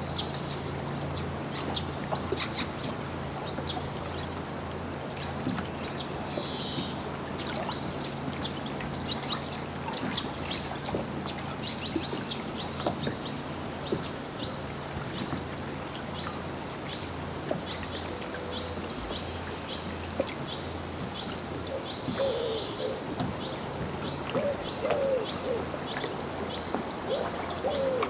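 Small birds singing in many short, high, repeated chirps over water lapping at a dock. A faint steady low hum fades out about two-thirds of the way through.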